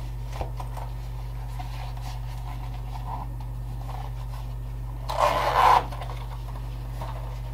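Leather pouch being handled: faint rubbing and small clicks over a steady low hum, with one short, louder rustle about five seconds in.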